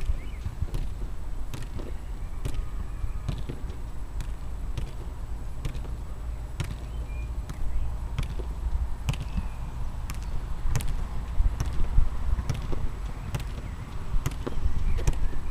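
A football being juggled: dull taps of the ball on foot and thigh at an even rhythm of about one touch a second, over a steady low rumble.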